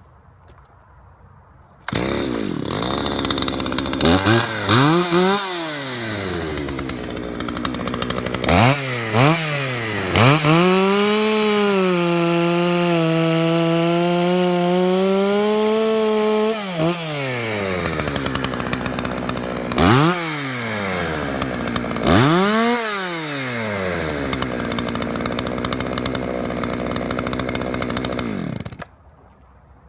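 Poulan 3450 60 cc two-stroke chainsaw running, revved up and down several times and held at high revs for about six seconds in the middle, dropping back between revs. The sound starts suddenly a couple of seconds in and cuts off abruptly near the end.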